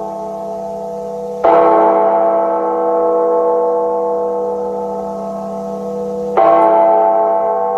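A gong-like tone struck twice, about five seconds apart, each hit ringing on with several steady tones that slowly fade.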